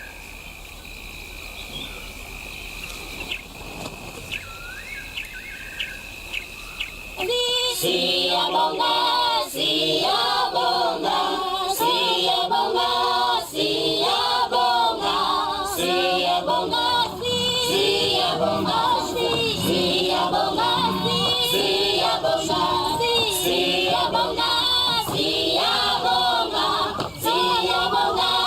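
Quiet outdoor ambience with a steady high whine and a few short chirps, then choral singing comes in about a quarter of the way through and carries on loudly as soundtrack music.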